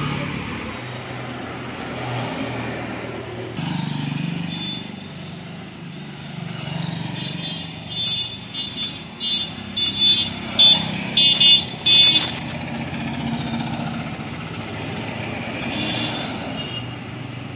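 Vehicle engines running with a motorcycle passing at the start. In the middle, a vehicle horn sounds a string of short, loud toots that grow louder, then stop.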